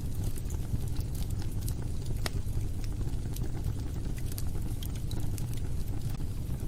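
Wood fire in a fireplace burning with a steady low rumble and scattered sharp crackles and pops, one louder pop a little over two seconds in.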